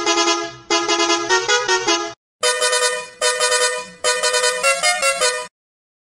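Bus horn sounding in a series of blasts. First comes a lower-pitched horn, then, after a short gap, a higher-pitched horn gives several blasts that step up and down in pitch like a short tune.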